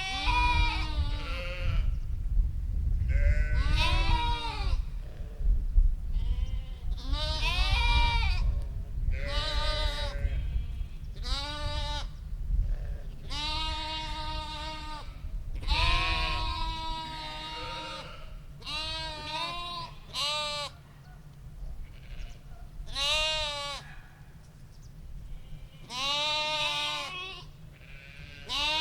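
Sheep bleating over and over, well over a dozen wavering calls from more than one animal, some overlapping, over a steady low rumble. The calls are louder in the first half and sparser and quieter toward the end.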